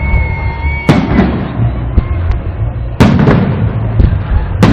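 Salute fireworks shells bursting: three loud bangs about one and a half to two seconds apart, each trailing off in echo. A thin steady whistle sounds in the first second.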